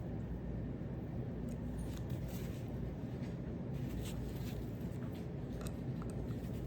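Faint small clicks and taps of a driver and knife parts being handled while the screws of a Buck Spitfire folding knife are tightened, over a steady low room hum.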